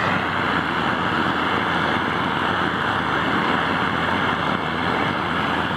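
Pressurized kerosene torch (Power Flame weed burner) running at full flame: a loud, steady rush of the burner jet, with a faint steady high tone riding on it.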